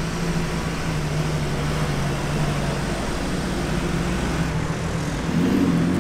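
Off-road 4x4 engine running steadily, its note rising a little about five seconds in.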